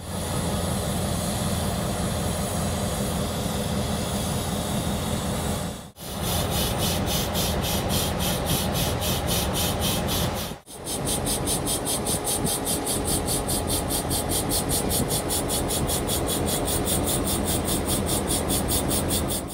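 Vintage diesel locomotives passing close by under power, a loud steady engine rumble with an even pulsing of about four to five beats a second in the higher sound. The sound drops out briefly twice, about six and ten seconds in, where shots are joined.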